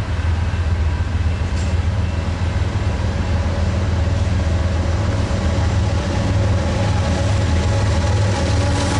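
Diesel locomotives at the head of a freight train running as they approach, a steady low engine drone that holds throughout. Near the end, as the lead unit comes alongside, a deeper engine tone comes in.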